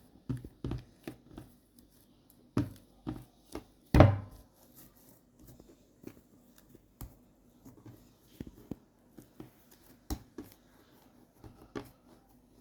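Hands turning and shaping balls of msemen dough on a work surface: scattered soft taps and knocks, with one louder thump about four seconds in.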